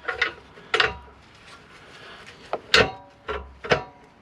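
Four sharp metallic clanks and knocks as exhaust parts and tools are handled, some ringing briefly, the loudest about three seconds in.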